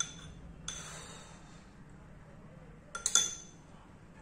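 A metal spoon clinking against a ceramic bowl and plate: a single tick at the start, then a quick cluster of ringing clinks about three seconds in, the loudest of them.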